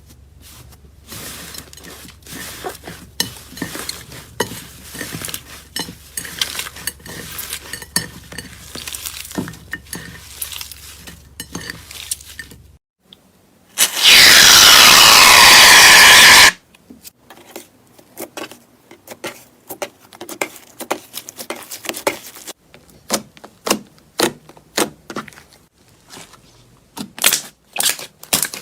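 Slime being squeezed and pressed by hand, a run of crackling clicks and pops. About halfway through, a very loud hissing burst lasts about two and a half seconds.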